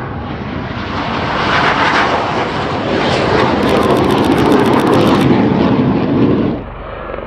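Military aircraft flying past at an air show: a loud engine roar that builds over the first few seconds, holds, and drops off sharply near the end.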